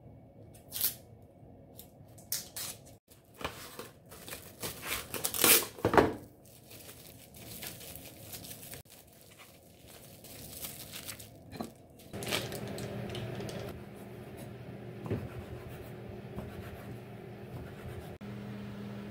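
Dry, papery onion skin being peeled off by hand, crackling and tearing in a string of sharp crackles that are loudest about five to six seconds in. From about twelve seconds in, a steady low hum runs under the sound.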